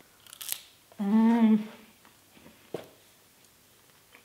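A person's crunching bite into a dry, crisp cashew-coated cabbage chip about half a second in, followed by a contented closed-mouth "mmm" hum lasting under a second, and a softer chewing crunch near the three-second mark.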